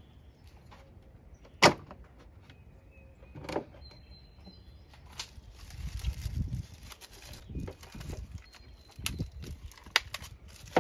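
Hand-work on automotive A/C lines and the accumulator in an engine bay: a sharp click about a second and a half in, the loudest sound, then scattered knocks and taps with some rubbing, handling noise in the middle.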